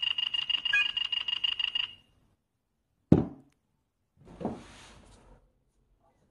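A rapid electronic trilling beep, a high pulsing tone that stops about two seconds in. A sharp knock follows about a second later, then a softer thump with a brief rustle.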